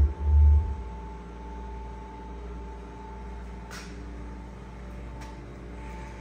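JBL PartyBox Ultimate party speaker's power-on sound ending in a deep bass boom during the first half-second. After it, a steady low hum and a faint steady tone run on, with a couple of faint clicks later.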